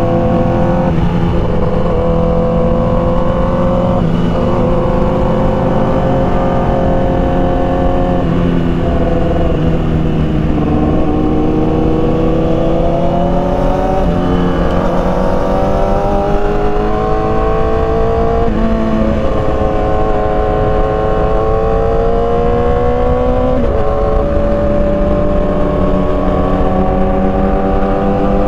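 Motorcycle engine running under way, its pitch climbing slowly and stepping down several times as the rider shifts up through the gears, over a steady low rumble of wind and road noise.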